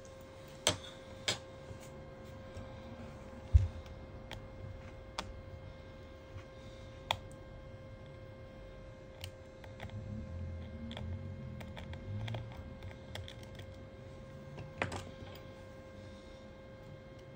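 Metal tweezers and a small pry tool clicking and tapping against the internal parts of a Google Pixel 3 smartphone: scattered sharp ticks at irregular moments, one low thump about three and a half seconds in, and soft rubbing and handling noise around ten to twelve seconds, over a faint steady hum.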